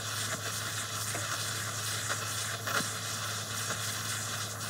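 Butane micro torch flame hissing steadily, with a few faint crackles, as it heats a pure silver wire ring red-hot to fuse the join.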